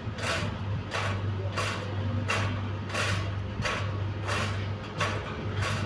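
Electric turbine fan running with a steady low motor hum and a repeating rasping swish, about two or three a second: the strange noise the fan is making.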